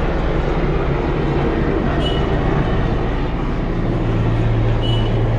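Helicopter circling overhead, a steady low drone of rotor and engine, its low hum growing stronger about four seconds in.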